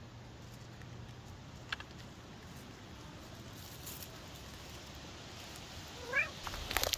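Maine Coon cat giving one short meow near the end that rises steeply in pitch, followed at once by rustling and crackling as it brushes through low undergrowth close to the microphone.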